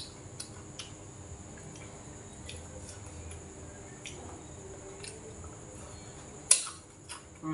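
Eating at a table: chopsticks and a metal spoon clicking lightly against bowls and a pot, with one sharper clink about six and a half seconds in, over a steady high hiss.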